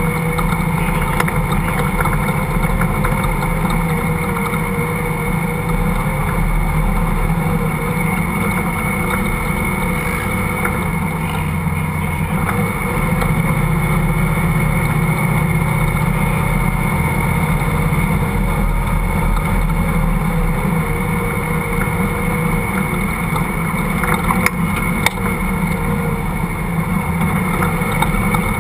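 Off-road vehicle's engine running steadily while driving over sand dunes, with a couple of sharp knocks a few seconds before the end.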